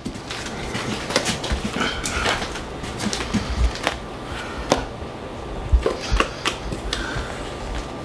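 A spatula scraping and knocking against the inside of a stainless-steel mixing bowl as the mixture is scraped out, with irregular clicks and a few low thumps from the bowl being handled.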